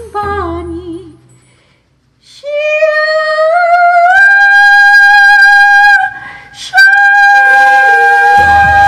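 Song ending: the accompanying melody fades to a short pause, then a singer holds one long high note that slides up and holds. It breaks off briefly about six seconds in and comes back, with the backing band returning near the end.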